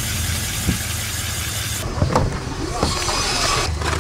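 Engine of a homemade tracked snow vehicle running steadily as it drives on its spiked tracks through snow, with a hiss that eases a little under halfway in and a few brief higher-pitched sounds around the middle.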